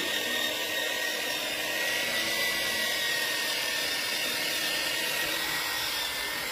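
A power tool or machine motor running steadily: a continuous high whine over an even hiss.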